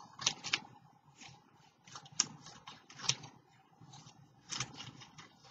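Scissors cutting paper strips: a string of short, irregular snips with paper crackling in between.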